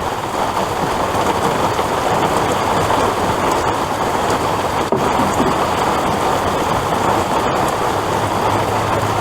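Heavy rain pouring down, a steady dense hiss that holds at the same level throughout.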